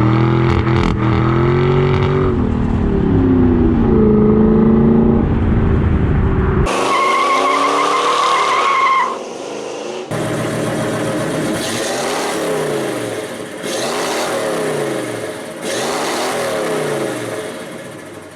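A run of short cut-together clips of vehicle engine sound. First an engine revs with its pitch rising and falling. About seven seconds in comes a brief high whine. After a sudden cut, vehicles are heard running and sweeping past.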